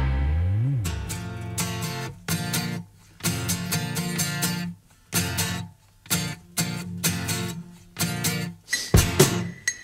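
Pop-rock song at an instrumental break: the band stops on a held chord as a bass note slides, then a guitar strums chords in short stop-start bursts with brief silences between them. Sharper hits near the end as the band comes back in.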